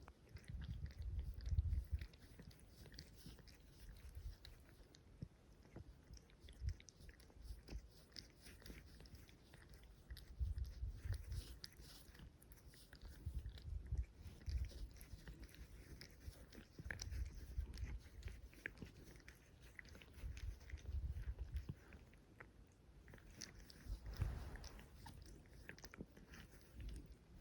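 Cats licking each other's fur during mutual grooming: quick, wet rasping clicks of the tongue, with low rumbles coming and going every few seconds.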